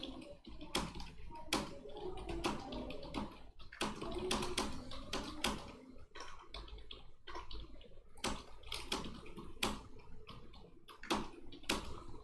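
Computer keyboard being typed on quickly: a fast, uneven run of key clicks, several a second, as a paragraph is typed at speed in a timed typing test (about 56 words per minute).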